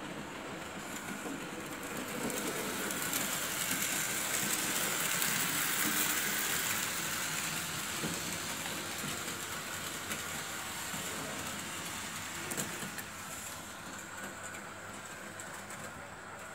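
Märklin H0 model trains running over the layout's track: a steady rolling noise with faint rapid clicks from the wheels, growing to its loudest about five or six seconds in and then easing off.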